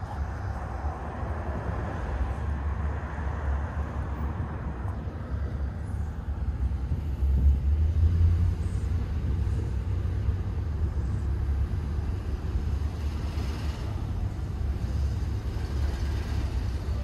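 Engine and road rumble of a moving truck heard from inside its cabin, steady and low, growing louder for about a second around the middle.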